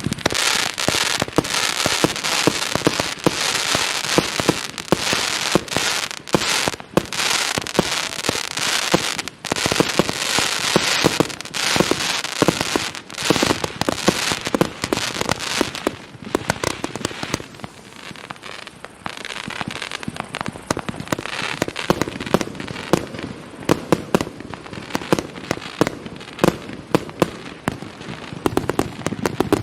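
A 139-shot firework battery (cake) firing in rapid succession: a continuous stream of sharp pops and bangs. For the first half it is a dense crackling; from about halfway it thins to quieter, separate sharp pops.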